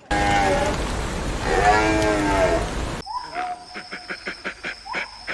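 Two drawn-out animal calls over a loud steady hiss, each rising and falling in pitch. About three seconds in the sound cuts to a different recording: a quick run of clicks with a short pitched call.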